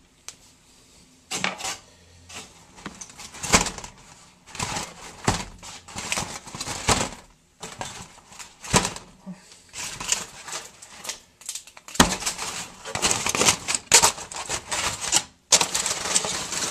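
Irregular clatter, knocks and crinkling from handling a foil-lined roasting pan, in bursts with short pauses, busiest in the last few seconds.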